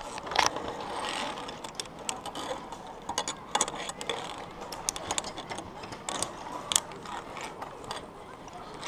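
Irregular metallic clicks and rattles of climbing safety gear, carabiners and lanyard, handled and shifted as the wearer moves along a ropes-course element; the clicks come unevenly, a few a second, the loudest just after the start and again about seven seconds in.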